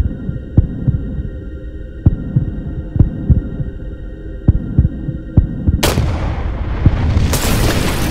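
Film sound design: a slow heartbeat, its beats in pairs over a steady low drone. About six seconds in a single sharp gunshot cracks, and about a second later comes a loud burst of shattering glass that runs on.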